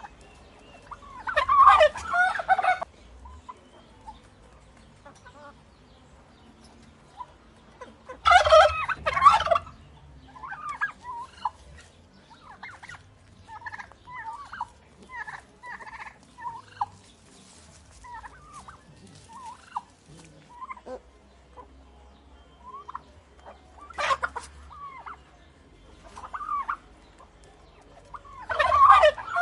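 Turkey gobbling: three loud, rattling gobbles about a second long, near the start, about eight seconds in and at the very end. In between are many short, quieter calls and one sharp, brief sound about 24 seconds in.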